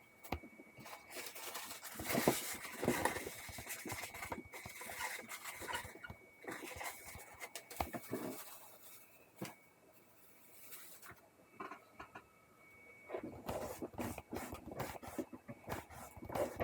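Irregular scrapes, taps and rustles of hands working on parts, with a faint steady high-pitched tone underneath.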